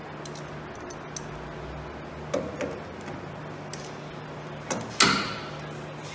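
Locking pliers and hand tools on a truck's front-end hardware: a few light metal clicks and knocks, then a sharp clack about five seconds in that rings briefly. A steady low hum runs underneath.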